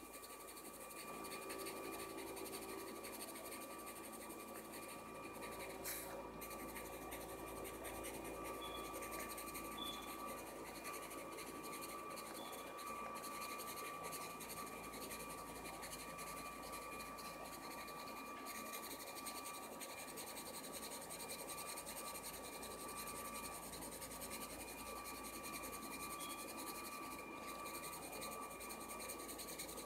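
Coloured pencil scratching on paper in steady shading strokes, over a faint steady high hum.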